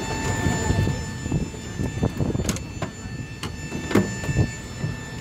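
Footsteps and knocks on metal boarding stairs, with several sharp clacks about two and a half and four seconds in, over a steady high whine.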